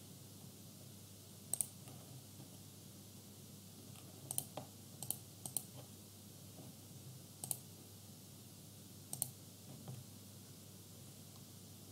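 Computer mouse buttons clicking: several sharp single clicks and quick double-clicks, spaced a second or more apart.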